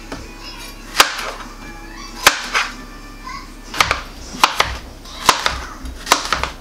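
Kitchen knife slicing peeled summer squash on a plastic cutting board: a sharp knock each time the blade reaches the board, irregular at first and coming faster in the second half.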